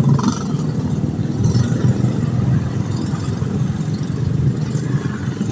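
An engine running steadily at low speed, a continuous low rumble with no change in pitch.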